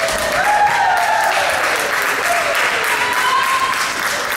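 Clapping and cheering from spectators and players at a volleyball match as a point ends. Several voices shout over the clapping, their calls sliding down in pitch.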